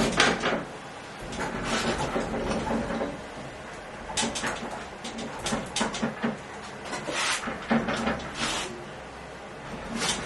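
Heavy bandsaw rolling on the small caster wheels of a wheel-and-dolly kit over a painted concrete floor, in irregular bursts of rolling, scraping and creaking with knocks from the handle and frame as it is steered.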